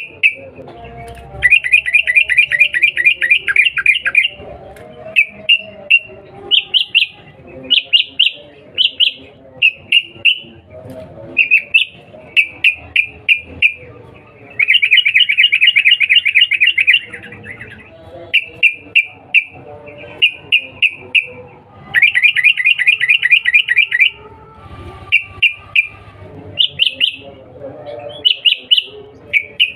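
Yellow-vented bulbul (trucukan) calling: short bubbly notes about once a second, broken three times by a fast chattering run lasting two to three seconds, near the start, about halfway and about three-quarters of the way through.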